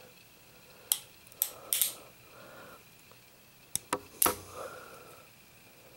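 Sharp metallic clicks from a Cimarron Model P Jr. single-action revolver as its hammer is thumbed back and the action is worked by hand. The clicks come in two groups of about three, the last click the loudest.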